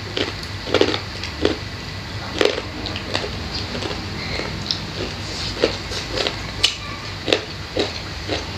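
Close-miked mukbang eating sounds: chewing and lip smacks, a steady run of short, irregular wet clicks and smacks as two people eat rice and side dishes with their hands.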